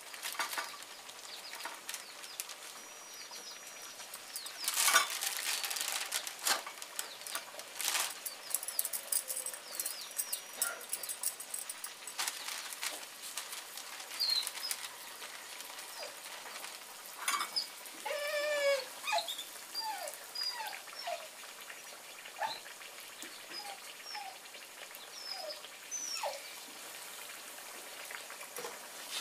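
Plastic sheet crinkling and rustling under hands pressing dough flat, in scattered crackles that are loudest about five and eight seconds in. Birds chirp in the background through the second half, with a quick run of repeated calls a little past the middle.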